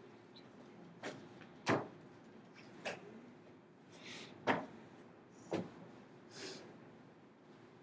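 A run of sharp knocks and clacks, about five in eight seconds, with two brief rustling swishes between them.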